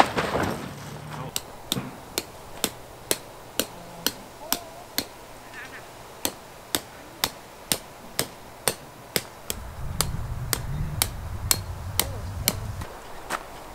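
Sharp knocks repeating evenly, about twice a second, with a low rumble joining for a few seconds near the end.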